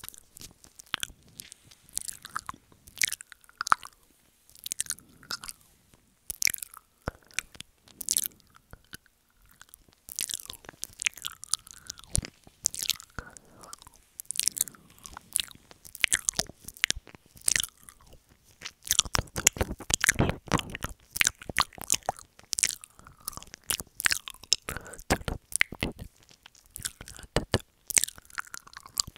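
Wet mouth sounds of ASMR ear eating: a dense, irregular run of clicks, at its thickest about two-thirds of the way through.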